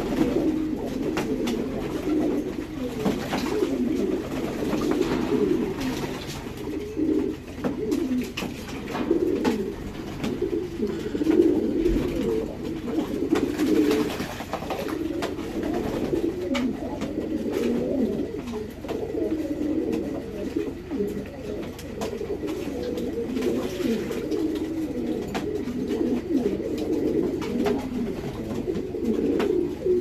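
A group of domestic pigeons cooing together, a dense, unbroken chorus of overlapping low coos, with scattered light clicks.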